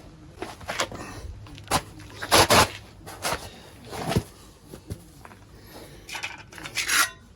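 A string of irregular short knocks and scraping or rustling sounds, the loudest about two and a half seconds in and again near the end.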